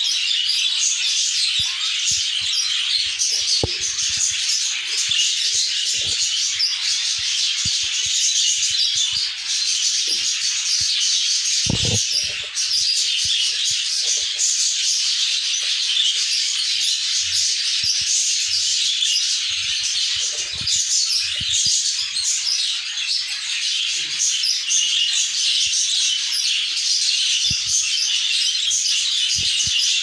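Budgerigars chattering and chirping continuously in a dense, high-pitched, unbroken twitter, with a few soft knocks, one louder about twelve seconds in.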